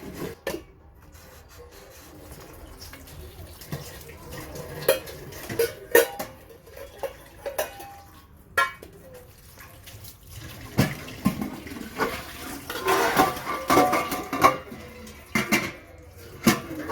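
Dishes and cutlery clattering and clinking as they are handled and washed at a sink, with some running water. The clinks come irregularly and grow busier and louder in the second half.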